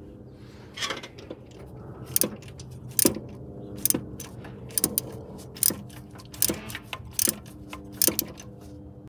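Ratchet wrench with a spark plug socket working a spark plug loose: sharp metallic clicks, about one a second, each with a short ringing tail.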